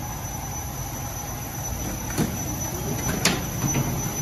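Suitcase wheels rolling along a jet bridge floor with footsteps, over a steady low rumble and a thin high whine; two sharp clacks about two and three seconds in.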